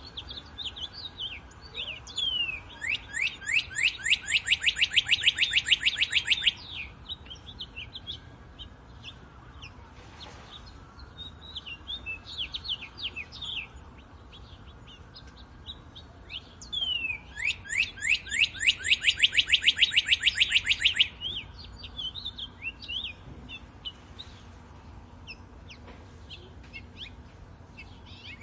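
Wild birds singing: twice a bird gives a loud, fast trill of rapid descending notes lasting about three and a half seconds, with softer scattered chirps in between.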